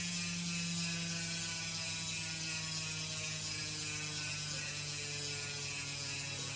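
DT Swiss 370 rear hub fitted with a 54-tooth Ratchet LN star ratchet, freewheeling at high speed: a continuous, really loud ratchet buzz whose pitch slowly falls as the wheel coasts down.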